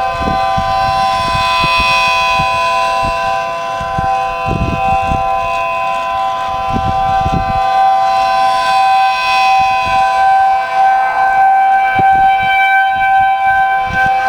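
A small homemade 3D-printed 12/9-port P10-style rotating siren sounds a steady chord. It swells and brightens twice, about seven seconds apart, as its horn turns toward and away from the microphone. Gusty wind buffets the microphone.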